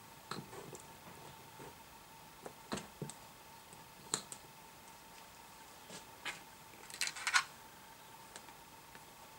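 Scattered light clicks and rustles of wires, clips and a plastic connector lead being handled, with a short cluster of clicks about seven seconds in. A faint steady high tone runs underneath.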